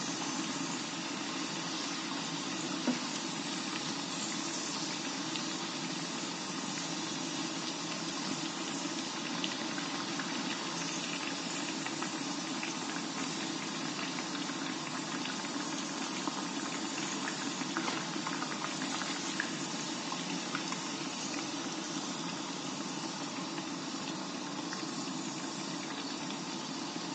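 Chana dal vadas deep-frying in hot oil: a steady bubbling sizzle through the whole stretch, with a few light clicks.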